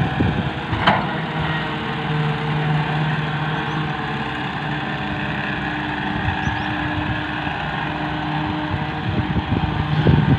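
Diesel engines of Massey Ferguson tractors and a tracked excavator running steadily together at a constant pitch. A single sharp knock comes about a second in.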